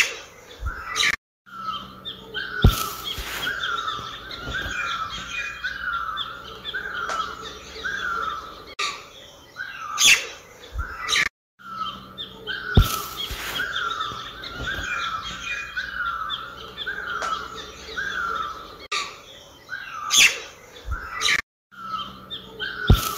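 Birds chirping: a run of short, quick chirps repeating several times a second, with a louder sound every few seconds. It is a looped ambience track that starts over about every ten seconds, with a brief silent gap at each restart.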